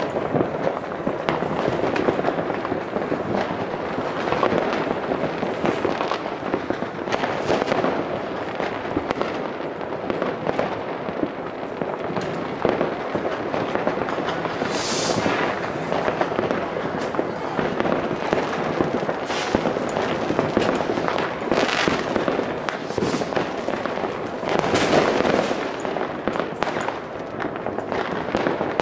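Many fireworks and firecrackers going off at once: a dense, unbroken crackle of bangs and pops. A few louder hissing bursts come about halfway through and twice near the end.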